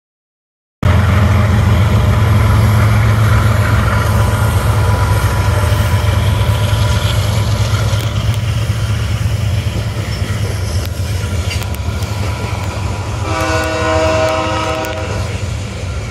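Freight train passing: diesel locomotives' engines rumbling loudly as they go by, then the freight cars rolling along the rails. The sound cuts in abruptly about a second in, and about thirteen seconds in a train horn sounds one blast of about a second and a half.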